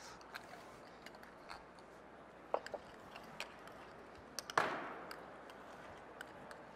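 Scattered light taps and clinks of a metal spoon and other utensils against a bowl and plates, with one sharper clink about four and a half seconds in.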